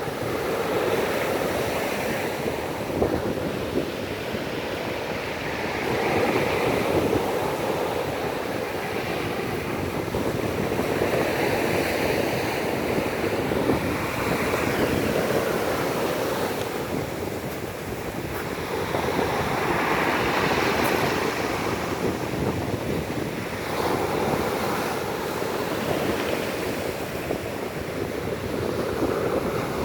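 Stormy sea surf: waves breaking and washing ashore, the noise swelling and easing every several seconds. Wind buffets the microphone.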